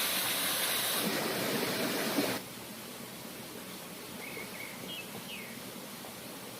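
A loud hiss that stops suddenly about two seconds in, then the steady rush of a stream with a few short bird chirps.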